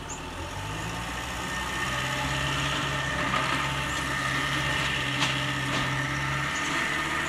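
An engine running steadily at a constant pitch, getting a little louder over the first two seconds.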